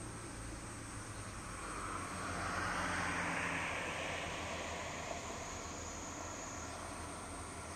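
Distant engine noise swelling up and fading away over a few seconds, over a steady outdoor background hiss.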